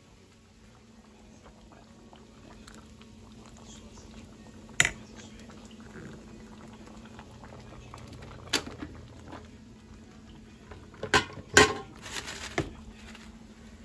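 Kitchen appliances being handled: a few sharp clicks and knocks over a faint steady hum, with a louder cluster of clacks near the end as an air fryer's basket is slid out.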